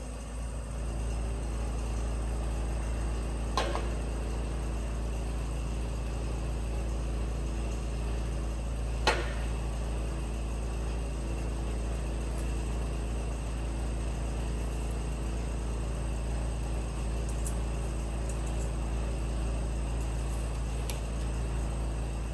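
A steady low machine-like hum, with a sharp click about three and a half seconds in and a louder one about nine seconds in.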